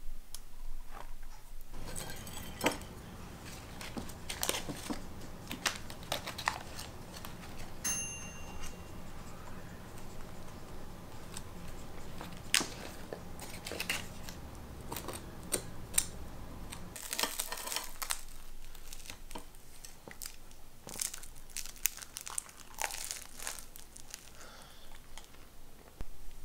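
Scattered crinkling and tearing sounds of bread being handled and pulled apart, under a low steady hum that stops about 17 seconds in. A short high beep sounds about 8 seconds in.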